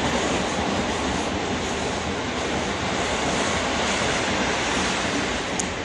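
Passenger train passing at speed: a steady rush of coaches and wheels on the rails, easing slightly near the end.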